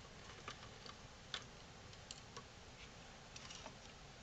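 Faint, irregular small ticks and clicks of a hand screwdriver working a small locking screw in a variable frequency drive's case.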